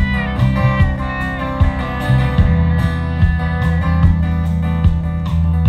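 Live band playing an instrumental break: strummed acoustic guitar and fiddle over drums and a bass line, with a steady beat.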